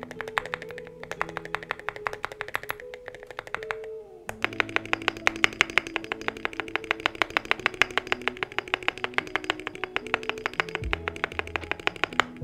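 Typing on a KBDFans Margo mechanical keyboard with pre-lubed Gateron Oil King linear switches and Cerakey ceramic keycaps: a fast, even run of keystrokes with a short pause about four seconds in, then quicker typing. Background music plays underneath.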